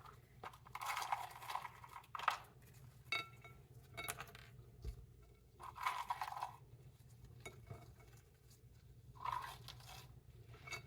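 Croutons being added to a salad: several short, faint rustles with light clinks and scrapes, one brief ringing clink about three seconds in.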